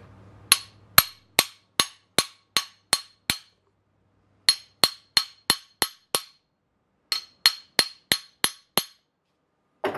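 Ball-peen hammer tapping a new bronze kingpin bushing into the kingpin bore of a Club Car Precedent golf cart's steel front spindle. The taps ring sharply, metal on metal, about two or three a second, in three runs with short pauses between them.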